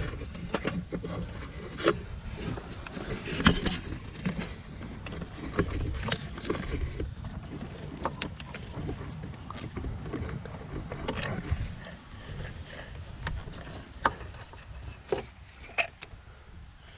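Irregular clicks, knocks and rubbing of hands and tools working an ignition coil loose from a tight spot at the back of a Ford 5.4L three-valve V8, plastic and metal parts knocking against one another.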